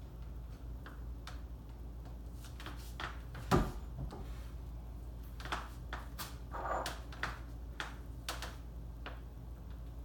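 Small clicks, clinks and knocks of tools and engine parts being handled on a workbench, with one louder knock about three and a half seconds in.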